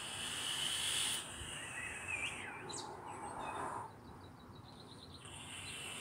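Air hissing through the fully opened top and bottom airflow holes of an iJoy RDTA 5 vape atomizer as it is drawn on, fired at high wattage: a draw of about a second at the start and another near the end. Birds chirp briefly in between.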